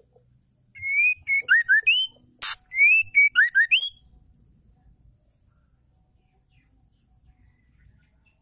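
Female white-rumped shama singing two quick phrases of clear, mostly rising slurred whistles in the first half. A brief harsh noisy burst comes between the two phrases.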